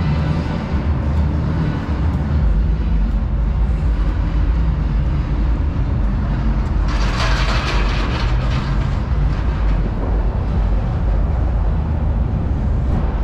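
Steady, loud low rumble of outdoor city noise, with a hiss lasting about two seconds some seven seconds in.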